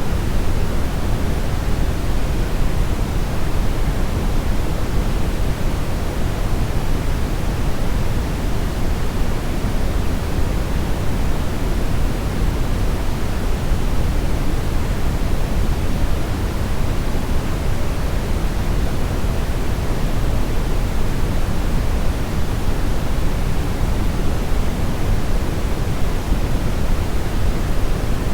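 Steady brownish noise: a continuous, even hiss heaviest in the low end, like a deep rushing rumble, with no tones or events.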